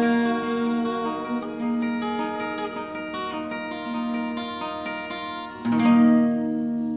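Acoustic guitar picking sustained notes, then a final strummed chord a little before the end that rings out and fades, closing the song.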